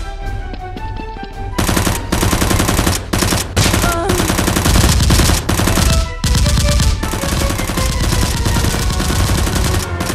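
Rapid automatic gunfire in long bursts with a few short breaks, starting about a second and a half in, over background music.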